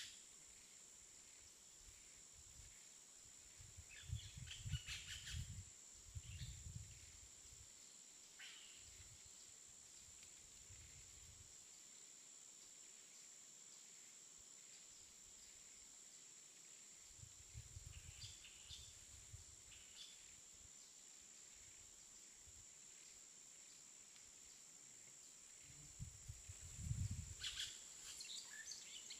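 Quiet outdoor ambience with a faint steady high-pitched hum. Camouflage netting and fishing gear rustle and bump against the microphone in several short spells, loudest near the end.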